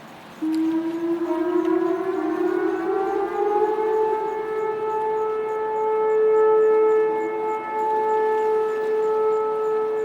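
Vortex R4 outdoor tornado warning sirens starting a test: about half a second in they switch on and wind up, rising in pitch for a few seconds, then sound a steady wail.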